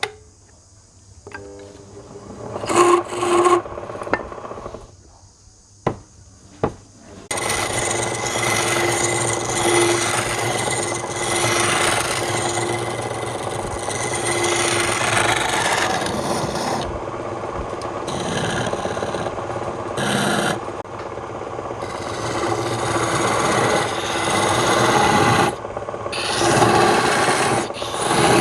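Wood being worked on a spinning woodturning lathe, a tool scraping against the turning wood. After a quieter start with a few short scrapes, a steady rasping begins about seven seconds in and goes on with an even hum beneath it.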